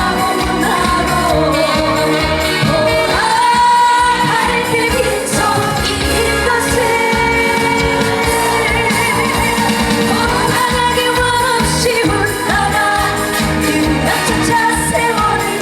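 Live trot song played loud: a steady beat under a lead melody that glides up and down in pitch.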